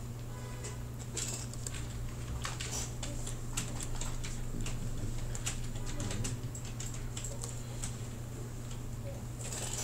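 Irregular clicking and tapping of a computer keyboard and mouse, over a steady low hum.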